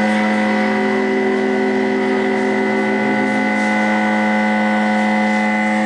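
A sound art installation's steady electronic drone: a low hum with several higher tones held together above it, unbroken and even in level.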